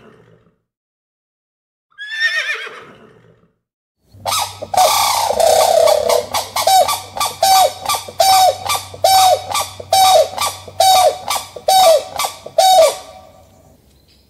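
A horse whinnies once, falling in pitch. About four seconds in, grey crowned cranes start a loud, rhythmic run of honking calls, one roughly every three-quarters of a second, which stops about a second before the end.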